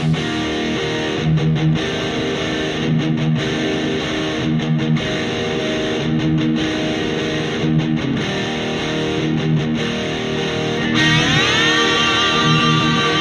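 Background music led by guitar, with a steady repeating pattern and a rising, sliding phrase near the end.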